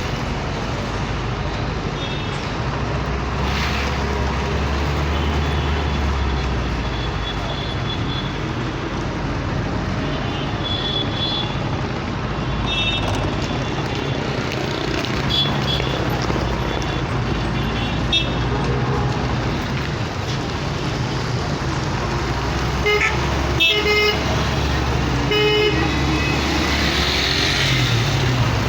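Road traffic: cars running past with a steady low engine and tyre rumble, and short car-horn toots, several in quick succession near the end.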